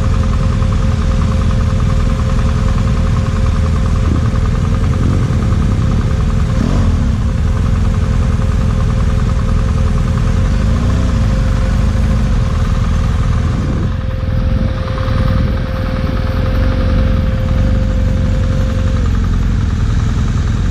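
BMW GS motorcycle engine running steadily, with a thin steady whine that stops shortly before the end.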